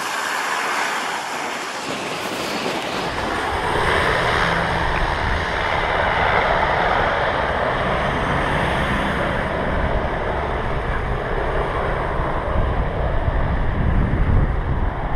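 Wind buffeting the microphone: a steady rushing hiss, with a low, uneven rumble from about three seconds in that grows stronger toward the end, mixed with car traffic on the road.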